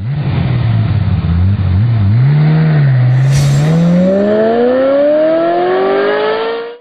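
Off-road SUV engine running, then revving up with a steady rise in pitch over the last three seconds, cutting off abruptly at the end. A short whoosh comes about three and a half seconds in.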